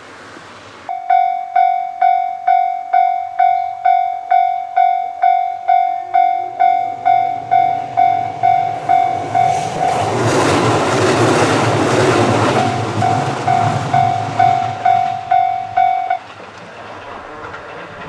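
Japanese level-crossing warning bell ringing about twice a second, starting about a second in and cutting off abruptly near the end. Around the middle, a loud rushing rumble swells up for a couple of seconds and drowns the bell out.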